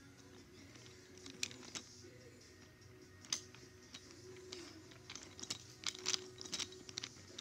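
Small plastic and wooden clicks and clatter as toy cars and trains are moved by hand on a wooden track and play rug, scattered at first and bunched together past the middle, over a faint steady hum.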